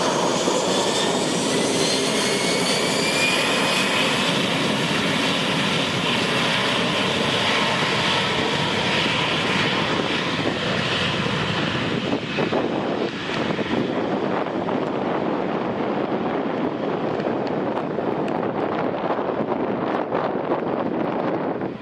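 Airbus A321's CFM56-5B turbofan engines at takeoff power. A whine rises in pitch over the first few seconds under a loud, dense jet roar, and the high end fades away in the second half as the aircraft draws off.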